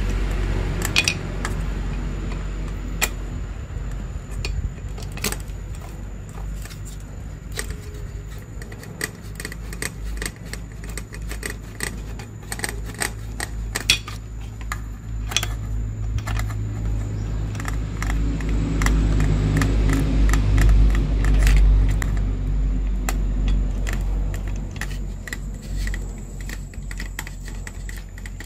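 Quick, irregular clicks and clinks of hand tools and small metal parts being handled while a smart TV is taken apart, over a low rumble that grows louder about two-thirds of the way through and then fades.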